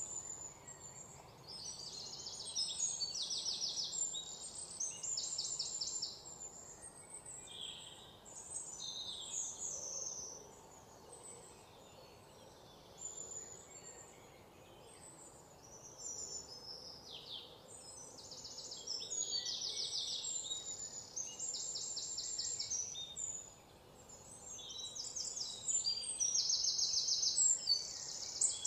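Birds chirping, with bursts of rapid high trills repeating every second or two, loudest near the end.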